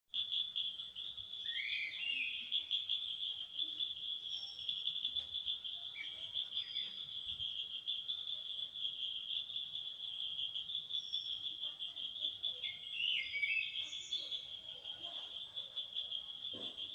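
Insects trilling in one continuous, finely pulsing high-pitched chorus. Birds call over it with short rising whistled notes: about 2 s in, again about 6 s in, and a couple around 13 s in, plus a few faint, higher chirps.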